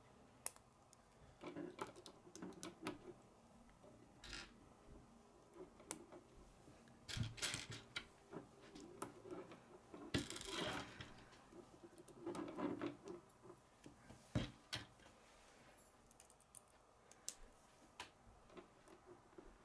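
Plastic K'nex rods and connectors being handled and fitted together: scattered sharp clicks and light clattering, with a few longer rustling bursts about a third, half and two-thirds of the way through.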